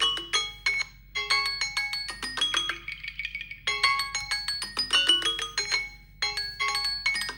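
Samsung Galaxy phone alert tone playing in a loop: a short phrase of quick, bright notes that repeats about every two and a half seconds.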